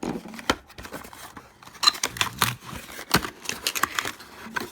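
Product packaging being handled and pulled apart by hand: irregular crinkling and rustling with clicks, and a few sharper snaps.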